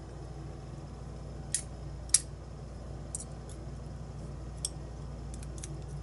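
Light metal clicks of tweezers and small lock pins being handled as a challenge lock's brass cylinder is taken apart: scattered sharp ticks, the loudest a little over two seconds in, with a cluster near the end.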